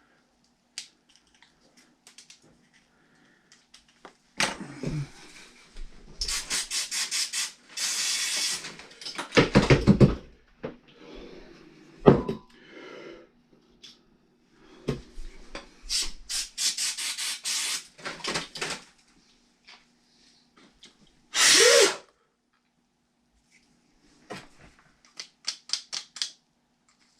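Hand-work on an RC truck: scattered clicks and knocks of tools and parts, with two runs of rapid ratchet-like clicking and a few heavier thumps.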